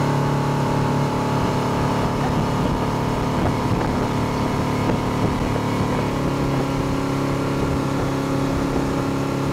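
Motorboat engine running steadily at speed while towing, with the rush of wind and churning wake water; the engine note shifts slightly about six seconds in.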